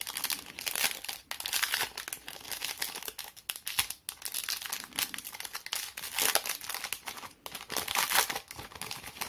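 Foil booster-pack wrapper of Yu-Gi-Oh! trading cards being torn open and handled: irregular crinkling and crackling of the foil.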